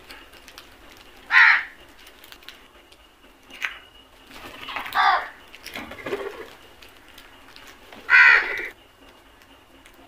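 House crows cawing: three loud harsh caws about a second and a half, five and eight seconds in, with a few fainter calls between.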